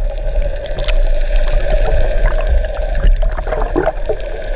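Underwater sound picked up by a GoPro Hero 3 in its waterproof housing: a loud, muffled rumble and rush of water with a steady hum and scattered clicks.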